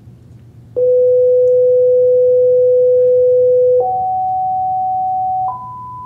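Pure sine test tone from a loudspeaker. It starts about a second in at 500 Hz, then steps up in pitch twice, to 750 Hz and then 1,000 Hz, getting a little quieter at each step.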